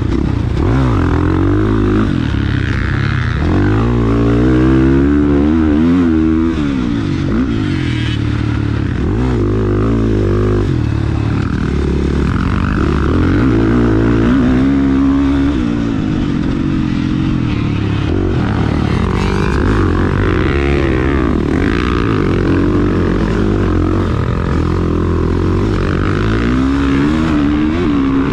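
450cc four-stroke single-cylinder dirt bike engine, heard from on the bike, revving up and easing off over and over as it accelerates and backs off around a motocross track.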